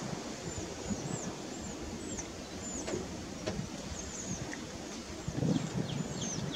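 Birds calling with short, high, hooked chirps, repeated every half-second or so, over a steady low rumble.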